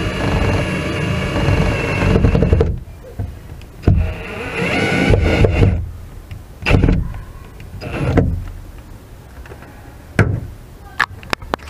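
Cordless drill driving a screw into plywood: a long run of the motor, a second run about four seconds in, then two short bursts. A few sharp clicks near the end.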